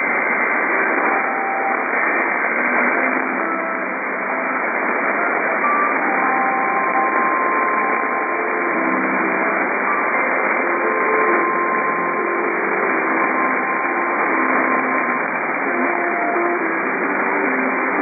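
AM radio static: a steady hiss from a weak AM broadcast signal, with short faint tones coming and going through it.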